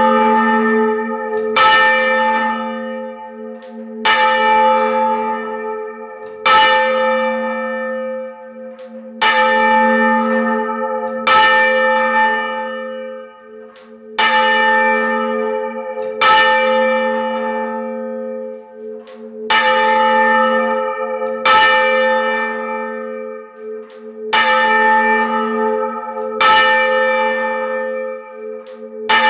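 Treble of a heavy ring of four change-ringing church bells, swung by hand and struck over and over, heard close up in the belfry. About a dozen strokes come at an uneven beat, gaps alternating a little over two seconds and nearly three, the rhythm of handstroke and backstroke, each stroke ringing on until the next.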